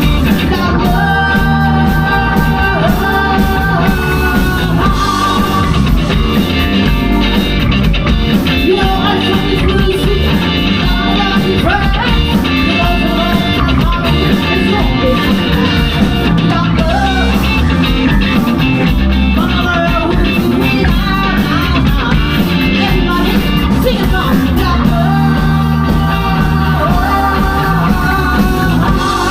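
Live rock band playing: drums, bass and electric guitar, with a sung lead vocal.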